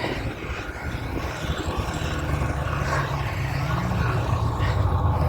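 An engine droning steadily at a low pitch, slowly growing louder.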